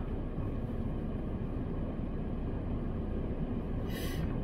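Steady low rumble inside a parked car's cabin, with a short hiss about four seconds in.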